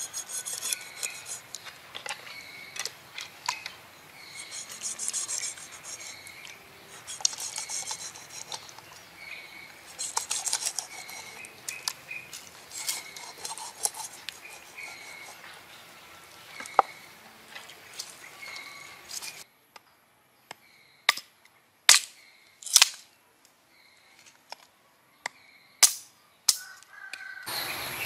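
A large cleaver scraping and cutting a skinned fish on a wooden cutting board, in repeated raspy strokes with knocks of the blade on the board, over a recurring high chirp. About two-thirds through this gives way to a much quieter stretch with a few sharp clicks.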